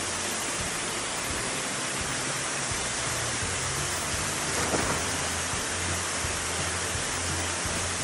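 Waterfall rushing steadily into a plunge pool, with a short splash about halfway through as a swimmer dives into the pool.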